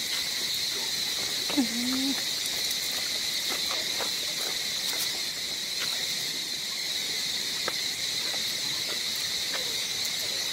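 Insects droning steadily in one high, unbroken buzz, with a brief pitched call about a second and a half in.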